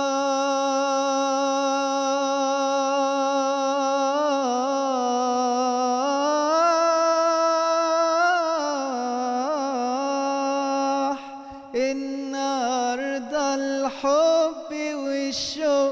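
A man singing unaccompanied in classical Egyptian style: one long held note with ornamental turns and wavers in the middle, breaking into shorter phrases after about eleven seconds.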